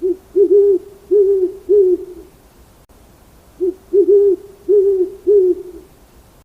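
Bird giving two runs of about five short, low hoots each, the second run starting about three and a half seconds in.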